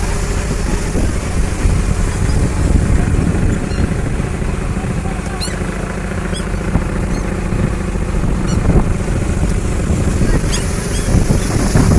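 Fishing boat's engine running with a steady low rumble at sea, with seagulls calling faintly a few times over it.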